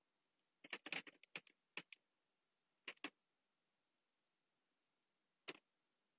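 Computer keyboard keystrokes: a quick run of about ten key presses about a second in, two more near the three-second mark, and a single click near the end, with near silence between.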